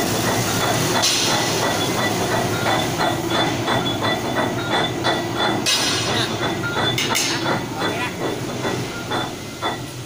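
Sicoma twin-shaft concrete mixer running empty on test, its paddle shafts turning with a steady mechanical rumble and an even, rapid clatter of metal clanks, several a second. A thin steady high whine runs under it.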